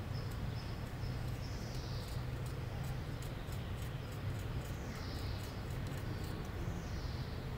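Faint scratching of a small knife blade scraping the skin of a Stephanotis floribunda stem, a few soft strokes, wounding the stem so it will root when layered. A steady low hum runs underneath.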